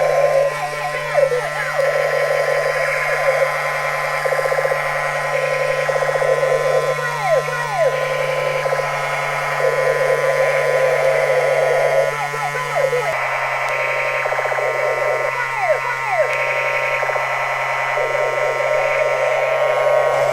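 Battery-powered toy gun's electronic sound chip playing a looping alarm-like effect: steady electronic tones with falling pitch sweeps every few seconds. The pitch of the tones shifts about two-thirds of the way through.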